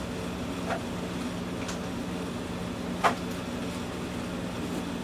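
Items being handled in a metal tool chest: a few light clicks and one sharper knock about three seconds in. A room air conditioner hums steadily underneath.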